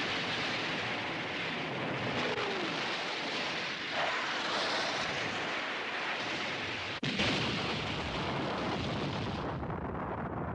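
Loud, continuous roaring rush of an explosion sound effect, with no separate blasts standing out; it cuts out for an instant about seven seconds in and starts again.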